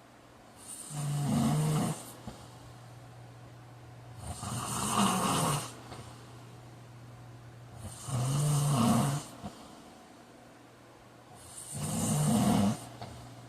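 A man snoring in his sleep: four loud snores, one every three and a half to four seconds, each a low-pitched snore over a breathy hiss.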